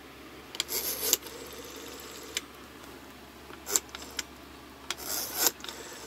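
Rubbing and rustling of fabric and handling noise, in a few short scraping bursts: about a second in, near four seconds and about five seconds in.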